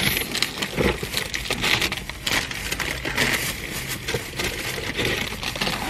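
Paper sandwich wrappers crinkling and rustling as wrapped sandwiches are handled: a dense, irregular run of small crackles.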